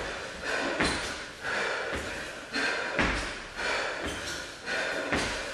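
Trainers thumping and scuffing on a tiled floor in a steady rhythm of kicks, with quick sharp exhales.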